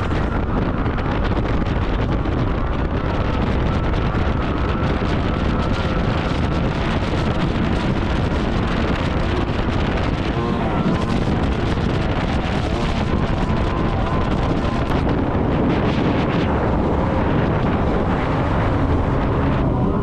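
Thundercat race boat's outboard motor running steadily at speed, with heavy wind buffeting the microphone.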